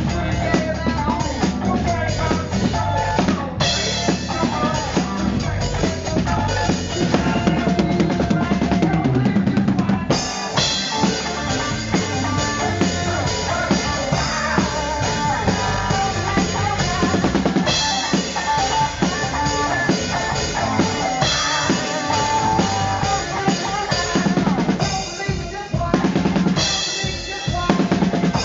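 Rock music with a loud drum kit, bass drum and snare driving a steady beat. The cymbals build up and fall away as the song moves between sections.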